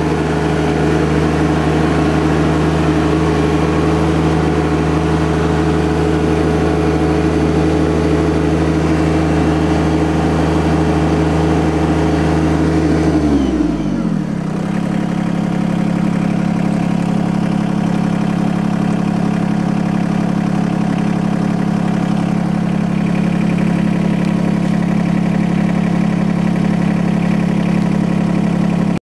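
John Deere 2210 compact tractor's three-cylinder diesel engine running steadily. About halfway through its pitch falls as the engine speed changes, and it settles into a steady lower note.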